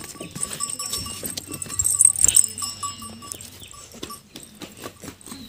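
Goats close by, with scattered knocks and shuffling and a louder rustling burst about two seconds in.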